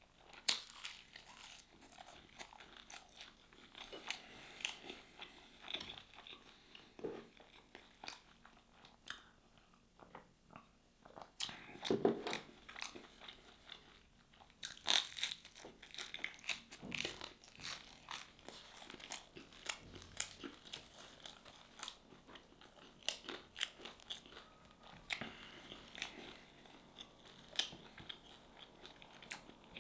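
Close-miked eating: a person chewing and biting food, with many irregular small crunches and wet chewing sounds, a few louder bites now and then.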